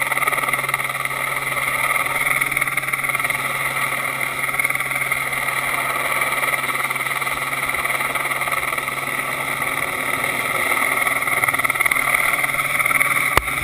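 Helicopter overhead running steadily, a constant drone with a steady whine, heard from the end of a long line slung beneath it. A single sharp click near the end.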